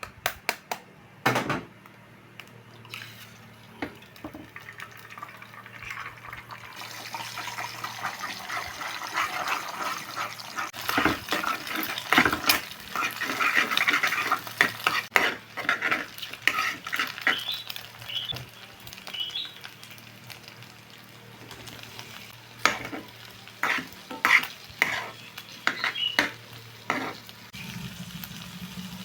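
Stir-frying vegetables and meatballs in a pan: a spatula knocking and scraping against the pan, with a sizzle that builds about a quarter of the way in and fades after the middle.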